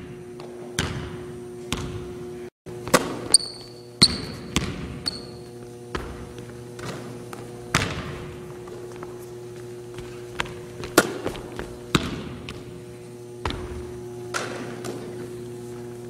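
Basketball bouncing on a hardwood gym floor: irregular sharp thuds, each ringing on in the hall's echo. Three short high sneaker squeaks come about three to five seconds in, over a steady hum.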